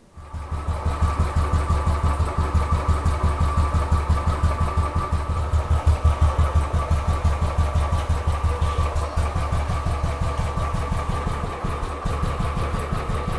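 Royal Enfield Bullet single-cylinder engine starting up and settling into a steady, evenly pulsing idle, running on its freshly cleaned air filter.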